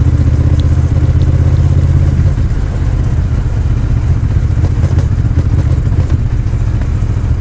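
Honda Rebel 1100's parallel-twin engine running with a steady low hum; the sound shifts and gets slightly quieter about two seconds in.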